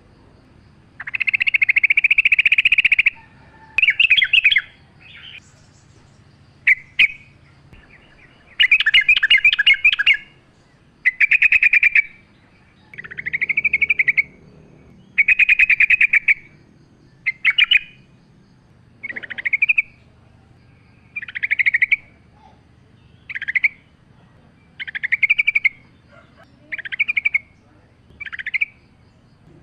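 Yellow-vented bulbul singing a run of short bubbly, chattering phrases, one every second or two, over a faint low background hum.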